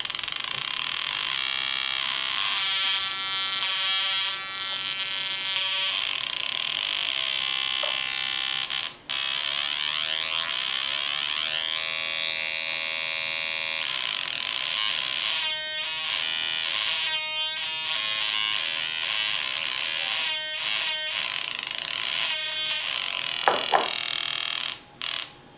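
Atari Punk Console, a two-555-timer square-wave noise synth on a breadboard, sounding a harsh, continuous electronic buzz whose pitch and texture shift as its knobs are turned. It cuts out briefly about nine seconds in and twice near the end.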